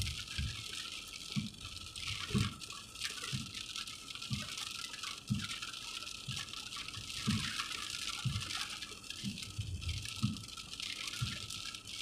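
Rain hitting a car windshield while the wipers sweep, heard from inside the cabin: a steady hiss of water with a soft low thud about once a second.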